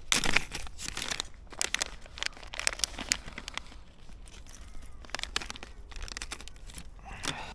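Close, irregular crinkling, rustling and small clicks as fishing tackle is handled: a soft silicone lure and its treble-hook stinger rig being taken in hand. The loudest crinkle comes just after the start.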